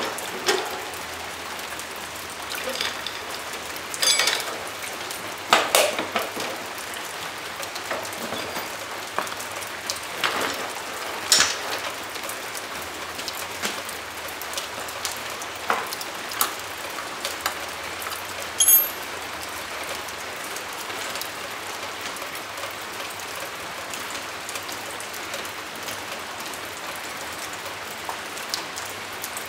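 Scattered metallic clicks and knocks of hand work on a dirt bike's rear wheel as it is turned with its chain and sprocket, including one short ringing metallic ping about two-thirds of the way through. A steady hiss runs underneath.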